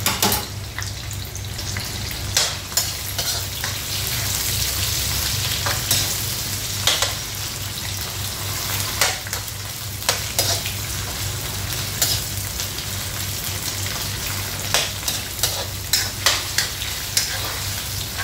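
Sliced onions and garlic paste sizzling in hot oil in a nonstick wok, stirred with a metal spoon that clicks and scrapes against the pan at irregular moments. A steady low hum runs underneath.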